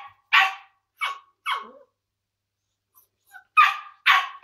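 Nine-week-old smooth collie puppy barking in short barks: three in quick succession, a pause of nearly two seconds, then two more. They are alarm barks at an unfamiliar object, an empty toilet paper roll.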